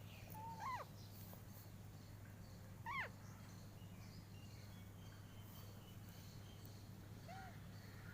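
Pet parrot calling: two short squawks that sweep up and then drop, just under a second in and about three seconds in, and a fainter call near the end, over a steady low hum.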